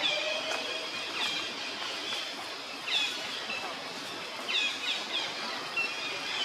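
Outdoor forest ambience: a steady hiss with short, high chirping animal calls every second or so, several coming in quick pairs and dropping slightly in pitch.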